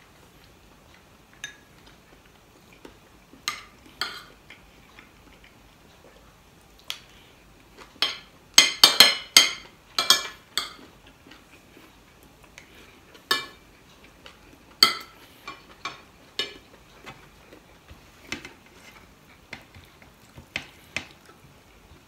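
Metal spoon and fork clinking and scraping against a ceramic plate: scattered single clicks, with a quick run of louder clinks about nine seconds in.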